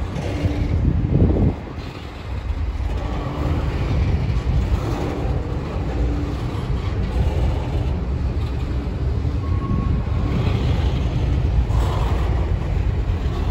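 Double-stack intermodal container train rolling past, its well cars making a steady low rumble of wheels on rail.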